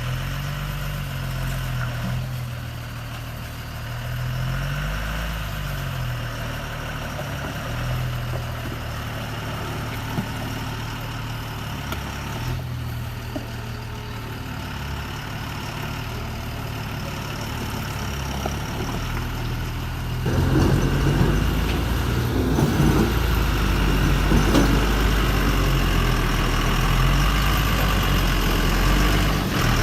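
Remote-control toy dump truck and excavator running: a steady engine-like hum with a higher motor whine, wavering in pitch, turning louder and rougher about twenty seconds in.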